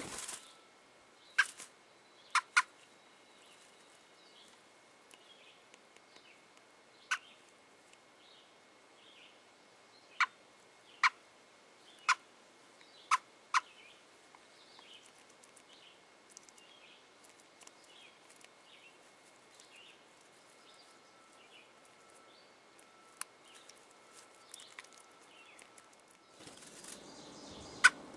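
Faint chirping of birds around a robin's nest, with about a dozen sharp, very short clicks scattered at irregular intervals, most of them in the first half. Near the end the background hiss becomes louder.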